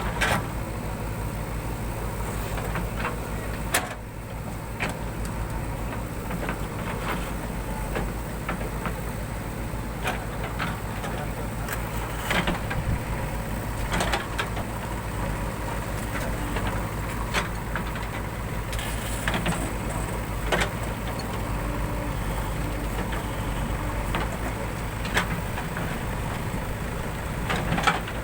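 Diesel engine of a JCB 3DX backhoe loader running steadily under work, with scattered sharp clanks and knocks every few seconds.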